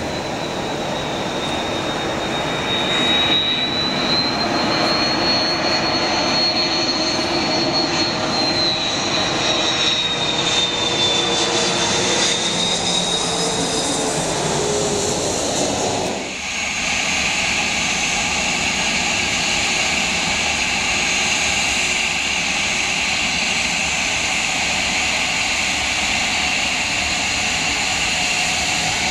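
Airbus A330-300 jet airliner's engines running at high power as it departs, with a loud engine noise and a high fan whine that rises and falls in pitch. About two-thirds of the way through, the sound changes suddenly to the steady whine and rumble of an Airbus A340-300's four CFM56 engines as it taxis.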